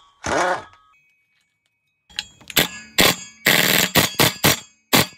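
Socket wrench on a long extension working the bolts of a rear propshaft flange, with a screwdriver wedged in the flange to hold it: one ringing metallic clank, a short pause, then a run of sharp metal clicks and knocks, some in quick bunches of about four a second.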